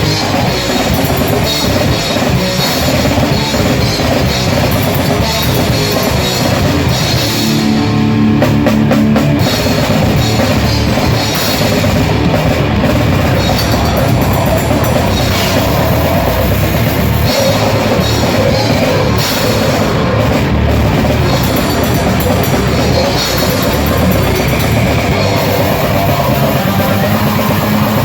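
Grindcore band playing live at full volume: a drum kit pounding under heavy, dense distorted guitar and bass, without a break.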